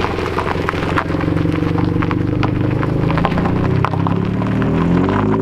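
Toyota 86's flat-four engine running at held revs with its exhaust crackling and popping throughout, from a tune set up to backfire on command. The revs rise slightly near the end.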